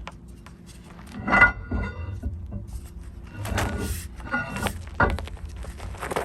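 Metal clunks, knocks and scraping as a drive axle shaft is worked out of its wheel hub, with a short metallic ring on the loudest knock about a second and a half in and a sharp knock near five seconds.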